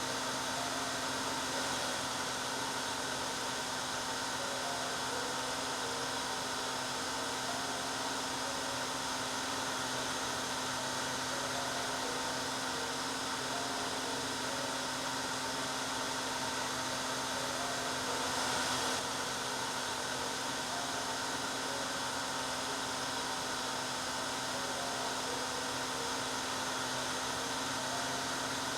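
Hair dryer running steadily: a continuous whooshing blow of air with a constant motor hum under it.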